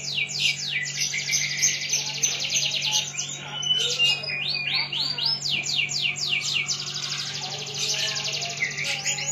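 Domestic canary singing a long, unbroken song of rapid high trills, with a few slower swooping notes around the middle.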